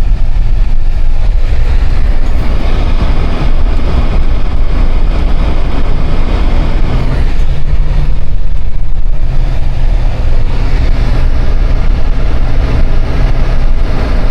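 Vehicle driving through deep snow, heard from inside the cab: a steady, loud low rumble of engine and road noise.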